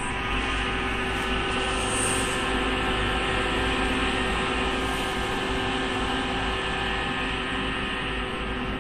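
Cooling fans in an open Yaskawa NX100 robot controller cabinet running: a steady drone with several steady hum tones.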